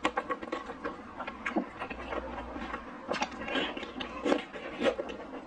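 Eating sounds: a soup spoon clicking and scraping against the bowl, with slurping and wet chewing of soup dumplings in chili broth, in irregular short clicks.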